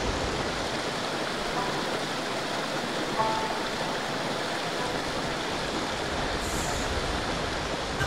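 Hot-spring water of the Kamuiwakka river rushing steadily down over rocks in the gorge.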